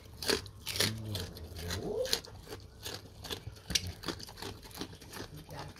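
Pig chewing pumpkin: wet, crunching bites about twice a second.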